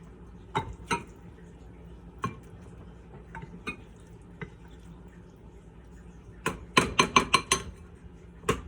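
Wooden spoon knocking against a glass bowl while scooping out the last of the macaroni: scattered taps, then a quick run of about six knocks near the end.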